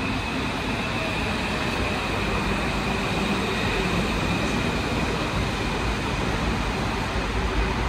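Santiago Metro AS-02 train running at low speed through rain, a steady even noise with a faint high whine over it in the first few seconds.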